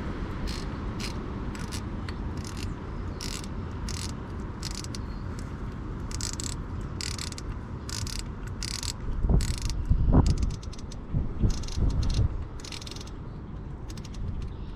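Ratchet with an 8mm socket clicking in short runs as the camshaft position sensor's hold-down bolt is tightened. A few louder low bumps come about nine to twelve seconds in.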